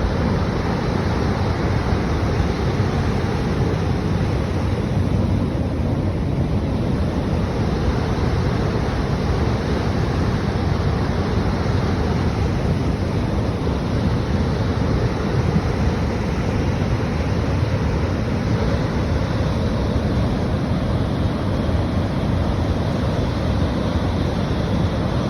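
River water rushing in a steady, unbroken flow, deep and even throughout.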